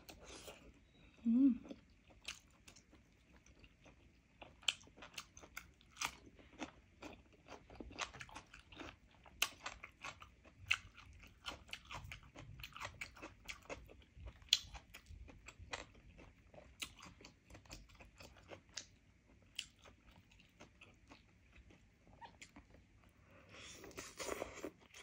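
Close-up eating sounds of roasted chicken being chewed: irregular sharp mouth clicks and smacks throughout, with a brief low hum about a second and a half in. Near the end, a denser burst of sound as she bites and tears meat from a drumstick.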